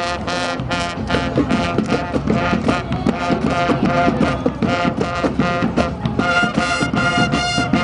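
Brass band music playing: short, rhythmic horn chords that settle into a steadier repeated pattern about six seconds in.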